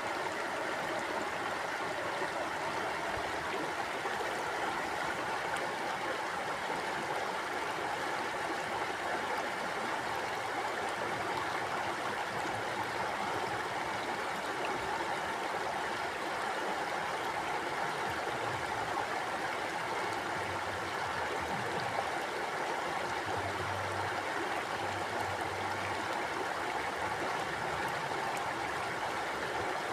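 A shallow stream running steadily over stones, an even rush of flowing water with gurgling.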